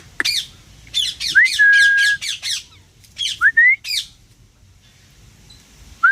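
Pet parrot calling: quick runs of harsh squawks over the first four seconds, mixed with a short steady whistle and a couple of rising whistles.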